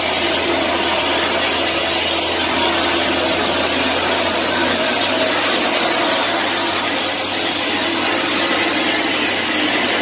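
Concrete mixer trucks and site machinery running: a steady, even mechanical noise with a low engine hum that drops away about halfway through.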